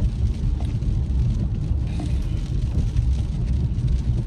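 Steady low rumble of a moving car's road and engine noise, heard from inside the cabin, with a few faint light clicks.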